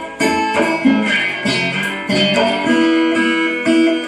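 Dobro resonator guitar played through an amplifier, fingerpicking a blues phrase of plucked treble and bass notes. A note is held from a little past halfway until near the end.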